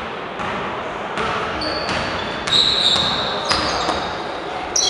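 A basketball bouncing on a wooden gym floor several times, with short high squeaks of sneakers on the hardwood, loudest about halfway through and near the end. Players' voices call out underneath.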